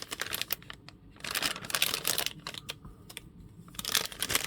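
Plastic packaging crinkling and rustling in the hands, with small clicks, in three bouts of a second or so.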